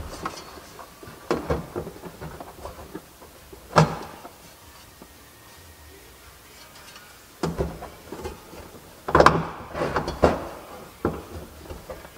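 Thin metal head-unit mounting sleeve being handled and pushed into a stereo opening in a cab roof panel: scattered clicks, knocks and light scrapes, with one sharp knock about four seconds in and a busier run of knocks near the end.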